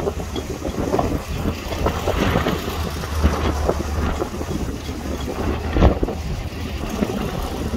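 Wind buffeting the microphone outdoors over choppy water: a gusty low rumble with irregular soft knocks, and one sharper thump about six seconds in.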